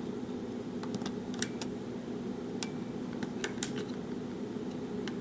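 Scattered small clicks and taps from a pin-tumbler challenge lock being handled as its core is worked out, over a steady low hum.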